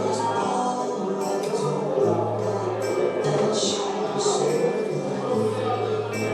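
Improvised noise-music track: a dense layered texture with a low droning tone that comes and goes in stretches of a second or two, and short jangling, hissy bursts over it.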